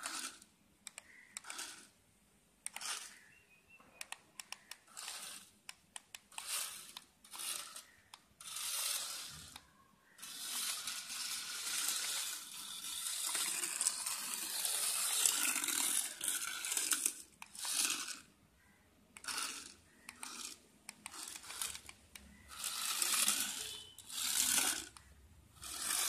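Stripped-down toy remote-control car's small electric drive motor whirring in short bursts about a second apart, with one longer run of several seconds in the middle.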